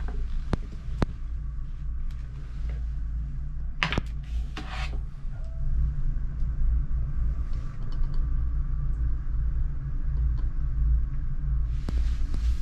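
A steady low rumble, with a few sharp clicks and clacks in the first five seconds from clothes hangers being handled on their wall hooks.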